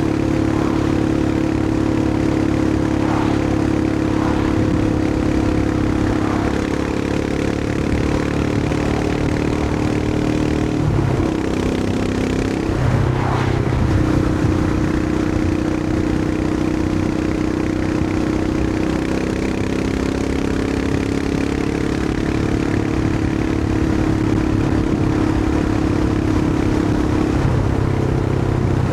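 Royal Enfield Himalayan 411's air-cooled single-cylinder engine running at a steady pace on the road. The engine note briefly breaks and shifts about eleven seconds in, and changes again near the end.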